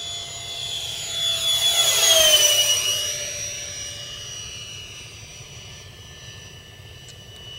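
Electric ducted fan of a radio-controlled T-45 jet model (68 mm metal fan driven by a 4000 kv outrunner on a 3S LiPo) whining in a fast flyby. It grows louder, peaks about two seconds in, drops in pitch as it passes, then fades.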